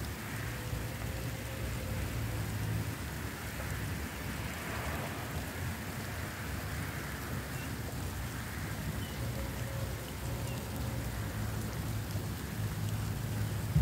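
Steady hiss of rain falling on wet pavement, with a low hum that swells and fades and a single sharp knock at the very end.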